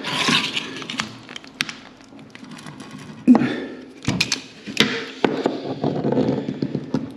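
Utility knife cutting and scraping along the silicone seal round a toilet pan, with clicks and knocks of the blade and hands against the ceramic and tiles. One louder knock about three seconds in.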